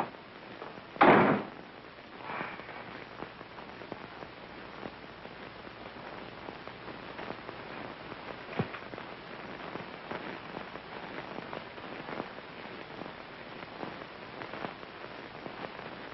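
Crackle and hiss of an old film's optical soundtrack, dotted with small pops throughout, with one loud thump about a second in.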